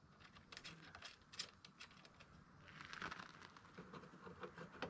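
Faint light clicks and a brief rustle of hands handling small hardware while fitting bolts to a dredge's plastic pontoon frame.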